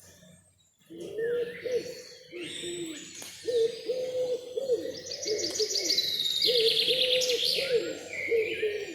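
Birds calling: a run of low calls, note after note, starting about a second in. Higher songbird chirps and fast trills join in over them, strongest through the middle and latter part.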